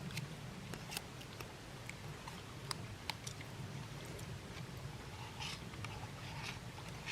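Quiet sounds of people eating: chewing, with scattered small sharp clicks and two brief scraping rustles near the end.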